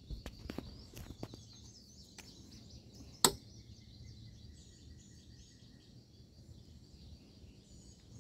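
Quiet garden ambience with small birds chirping continuously in the background. There are a few light clicks in the first two seconds and one loud, sharp click about three seconds in.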